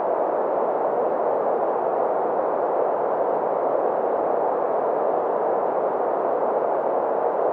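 Green noise: a steady, even hiss of synthetic colored noise centred in the middle frequencies, with little deep rumble or high hiss.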